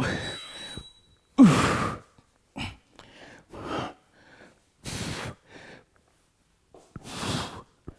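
A man's heavy, forceful breathing under exertion: sharp exhales and sighs every second or so, with one loud huff about a second and a half in, as he works through a seated thigh-band exercise.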